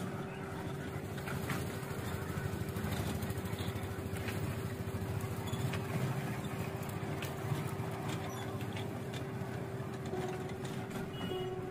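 Small electric kiddie train running around its circular rail track: a steady motor hum under a low rumble, with faint clicks from the wheels on the rails.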